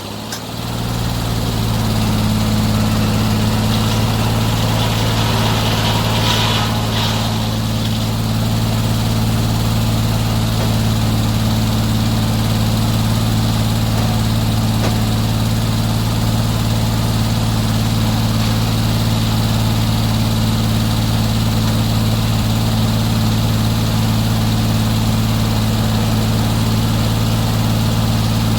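Portable bandsaw sawmill's engine running steadily with a low, even hum. It dips briefly at the very start and comes back up within about two seconds.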